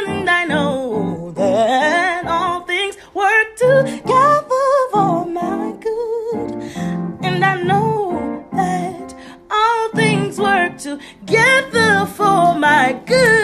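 Gospel-style singing with long melismatic runs, the voice sliding quickly up and down in pitch without clear words, over a strummed guitar accompaniment.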